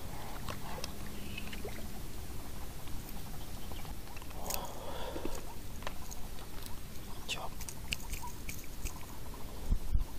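Handling sounds of landing a small hampala on ultralight spinning tackle: scattered light clicks and rustles over a low rumble, a short rush of noise about halfway through, and a thump near the end.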